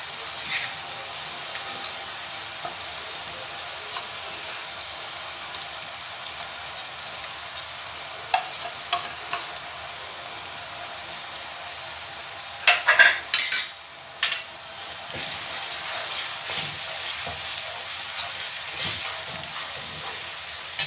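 Onion, garlic and ginger masala paste frying with a steady sizzle in a stainless-steel kadai, stirred with a steel spatula that scrapes and clinks against the pan. A louder burst of clattering comes about 13 seconds in.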